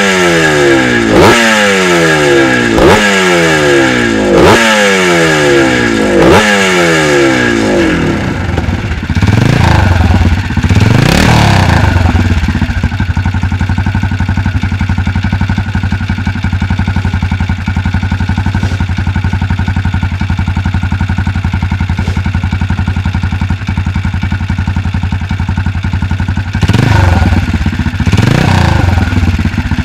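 A classic motocross bike revved in repeated throttle blips, about one every second and a half, each one falling back. After about eight seconds, a BSA Rickman Metisse's four-stroke single revs up a couple of times, then idles steadily, and is revved again a few seconds before the end.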